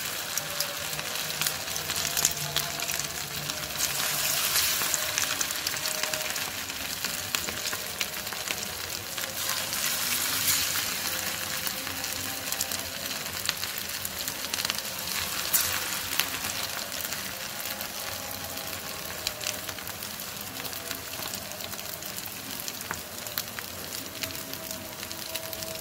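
Potato and semolina sticks sizzling and crackling as they shallow-fry in hot oil in a frying pan, the crackle swelling louder at times as more sticks go into the oil.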